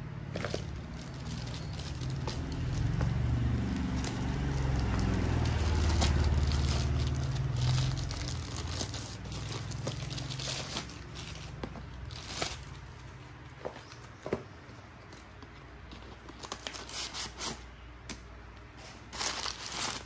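Wrapping paper crinkling and rustling as a parcel is unwrapped by hand, with scattered small clicks and knocks. A low rumble runs under the first half.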